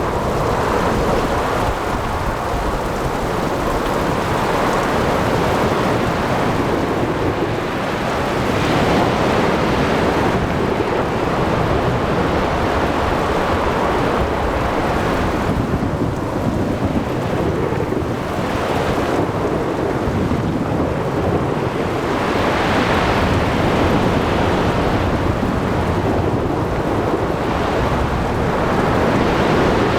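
Thunderstorm over the sea: heavy rain and wind with continuous low rolling thunder, swelling in several surges.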